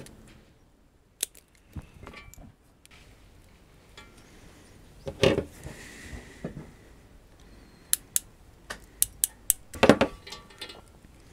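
Hand wire stripper and crimping tool at work on electrical wire: scattered sharp clicks and snips as insulation is stripped and connectors are crimped on, with two louder clunks about five seconds in and near the end, and a quick run of ticks just before the second.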